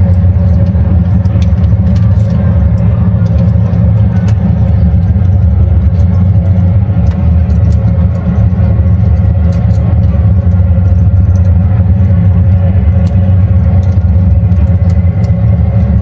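Charcoal and wood fire burning in a barbecue grill, crackling with scattered sharp pops over a loud, steady low rumble.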